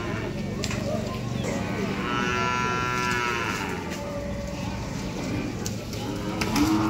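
Cattle mooing: one long, high call about two seconds in, and a lower moo beginning near the end, with a few knocks in between.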